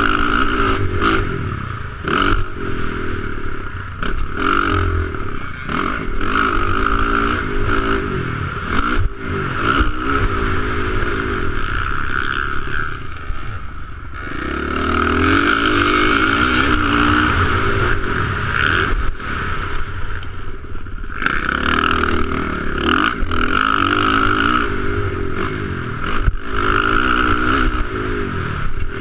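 Motocross dirt bike engine on the track, revving up and dropping back every couple of seconds as the rider works the throttle and gears, and easing off briefly about halfway. Sharp knocks from bumps and landings break in throughout.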